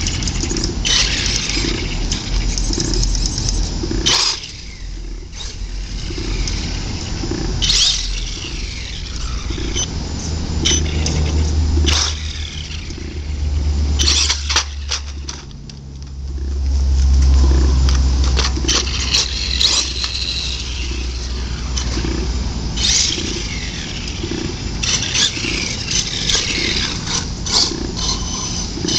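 Traxxas Revo VXL brushless electric RC monster truck being driven in throttle bursts. Its motor whine rises and falls again and again, with scattered knocks and scrapes as it runs over the ground.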